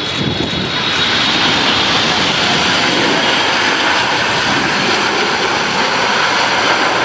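Airliner engines running loud and steady as the plane passes close by, with a high whine that fades out in the first second or two.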